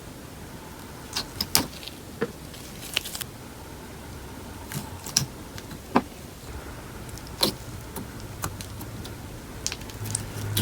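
Slime being kneaded and squished by hand with paper clay mixed in, giving irregular sticky clicks and pops.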